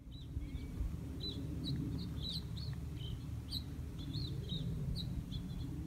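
Small songbirds chirping, many short high calls in quick succession, over a steady low background rumble.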